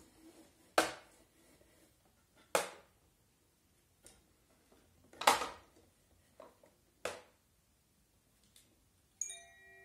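Hinged wooden doors and top flap of a kamishibai paper-theatre stage being swung shut: four sharp wood-on-wood knocks, a few softer ones between them. Near the end a chiming tune begins.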